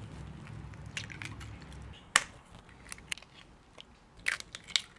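Eggshells cracked with a metal spoon: sharp taps and cracks, a loud one about two seconds in, then a quick cluster of taps near the end.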